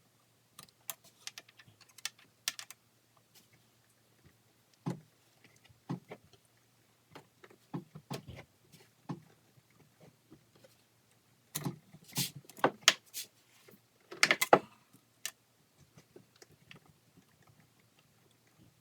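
Scattered clicks, clinks and knocks of hand tools and small metal parts as the carburetors are unbolted and disconnected from a Sea-Doo engine. There is a quicker, louder run of clinks a little past the middle.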